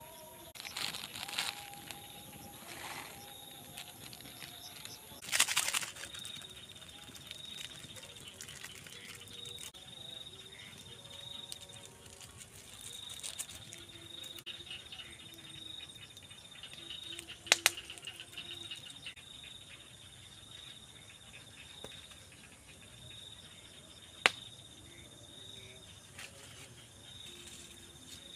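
Insects trilling, a high steady call that comes in repeated stretches of a second or two. Over it is a small wood and bamboo cooking fire, with a brief rustle about five seconds in and two sharp pops, the loudest sounds, past the middle.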